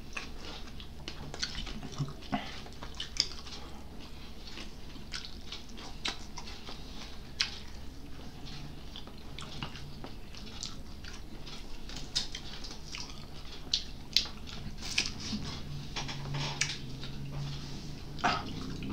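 Close-up eating sounds: chewing and biting, with irregular small clicks, crackles and mouth smacks.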